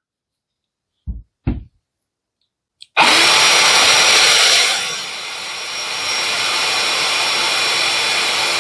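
Two knocks as a Parkside cordless power tool is handled, then about three seconds in the tool switches on and runs steadily and loudly, a rushing noise with a high whine over a lower hum; the level dips a little about two seconds later and then holds.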